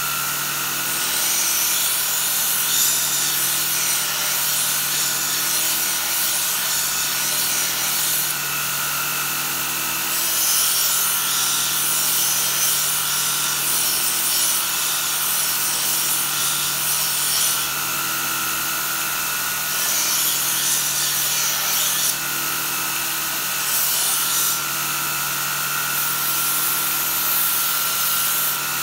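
Belt grinder running with a steady hum while a knife blade is sharpened against its abrasive belt: a rasping hiss comes and goes in repeated passes of one to several seconds each.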